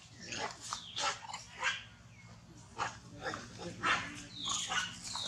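Young long-tailed macaques squealing and calling in short bursts as they scuffle, with one longer high squeal falling in pitch near the end.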